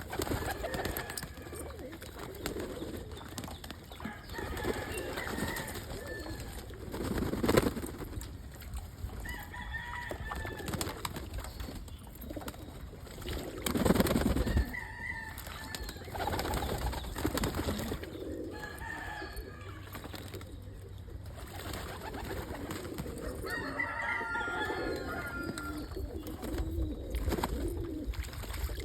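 Homing pigeons cooing repeatedly in a loft, low warbling calls overlapping one another, with fainter higher chirps. Two louder rustling bursts break in, about seven and fourteen seconds in.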